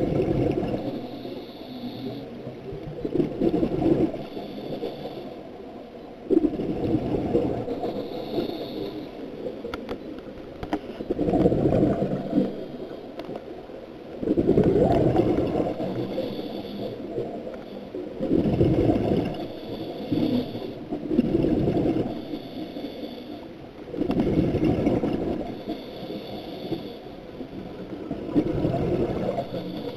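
Scuba regulator breathing underwater: a hiss on each inhale and a rush of exhaled bubbles, repeating about every three to four seconds.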